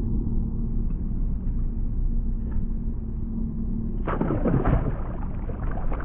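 Wind rumbling on the microphone on an open boat, with a steady low hum underneath; about four seconds in the hum stops and a louder, rougher rush of noise takes over.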